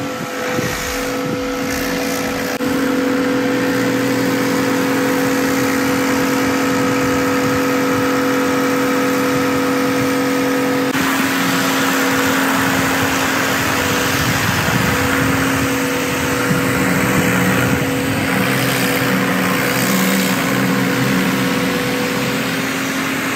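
Pressure washer running steadily: the pump motor holds one steady hum under the hiss of the high-pressure water jet on the wall. The balance of hum and spray shifts about halfway through.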